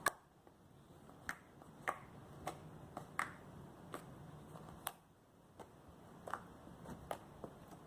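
Small, non-sticky slime being worked in the hands, giving off a series of faint, sharp little pops and clicks, roughly one or two a second. Being a small slime, it makes little noise.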